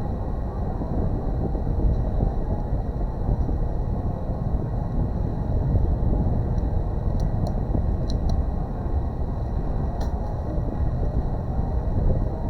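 Steady low rumbling noise with a few faint light clicks about two-thirds of the way through.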